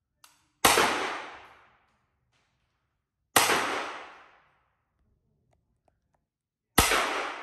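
Umarex Glock 17 Gen 5 CO2 pellet pistol firing three single shots about three seconds apart, each a sharp crack with a short echoing tail from the small range room.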